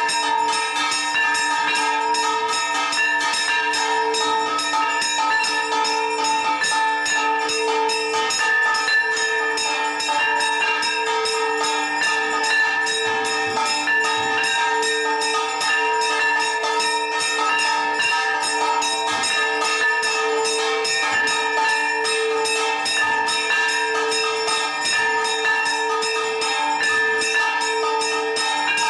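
Temple gongs rung for aarti worship, struck rapidly and without pause. The strikes merge into one continuous, dense ringing with several steady tones sounding over them.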